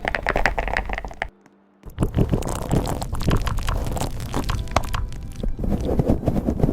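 Fast typing on a computer keyboard: a dense run of keystroke clicks. It breaks off for about half a second a little over a second in, then resumes.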